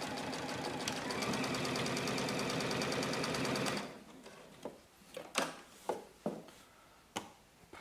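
Juki UX8 computerized sewing machine stitching at a steady, rapid pace through four layers of upholstery velvet, with an even stitch beat. It stops abruptly about four seconds in, and a few light clicks and rustles follow.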